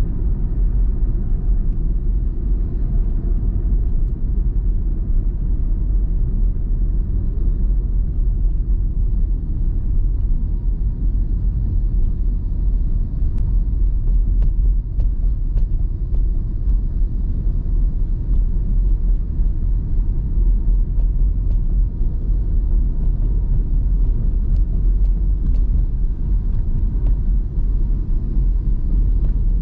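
Steady low rumble of a car driving at speed: tyre, road and engine noise heard from inside the cabin.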